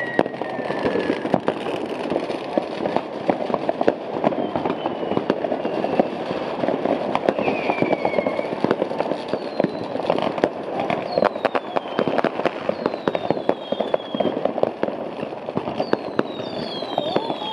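Fireworks going off all around: a dense, continuous run of sharp firecracker bangs and crackling, with several high whistles from whistling fireworks that fall in pitch.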